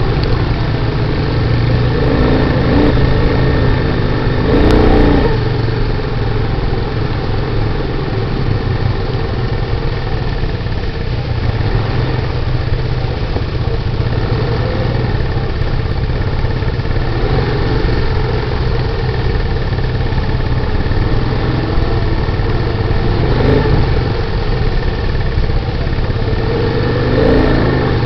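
Honda ATV engines (a 1995 TRX90 and a 1985 Big Red, both single-cylinder four-strokes) running at low trail speed: a steady low chugging, with brief rises in revs about five seconds in and near the end.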